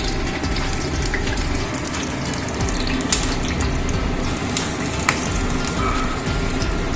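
Small Maggi noodle pakoras (batter of noodles, egg and cornflour) deep-frying in hot oil: a steady sizzle with scattered crackles and pops.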